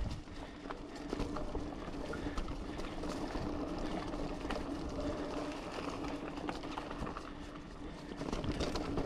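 Giant Fathom 2 mountain bike rolling along a dirt trail: steady tyre noise with many small clicks and rattles, over a steady low hum.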